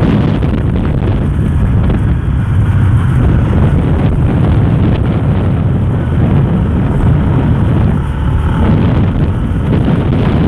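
Wind buffeting the microphone on a moving Yamaha Sniper 150 motorcycle, with its single-cylinder engine running underneath in a steady, low rush of noise.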